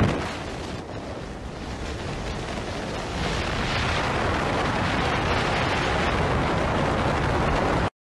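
Wind rushing past a moving car's open window and buffeting the microphone: a steady, loud rushing noise that grows somewhat louder over the first few seconds.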